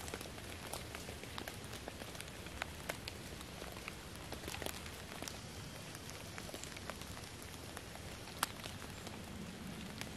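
Light rain falling on the fallen leaves of the forest floor: a soft steady hiss with individual drops ticking irregularly on the leaves, one louder tick about eight seconds in.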